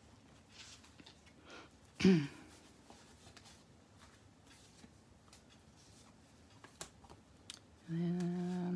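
Faint rustling and light taps of paper sticker sheets being picked up and shuffled on a tabletop. A brief hum from a voice about two seconds in, and a drawn-out spoken "and" starting near the end.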